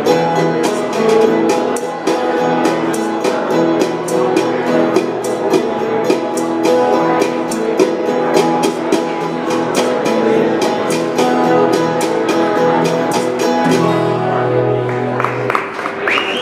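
Live acoustic trio of steel-string acoustic guitar, mandolin and djembe playing a steady strummed rhythm, ending on a held final chord near the end as cheering starts.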